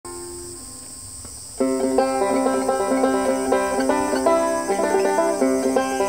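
Banjo picked in a fast, busy improvisation that comes in loudly about one and a half seconds in, after a few softer notes. Behind it is a steady high buzz of cicadas.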